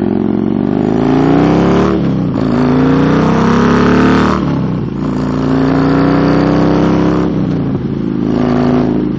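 Motorcycle engine accelerating through the gears: the pitch climbs, then drops at each of about three shifts, with a steady hiss of wind and road noise underneath.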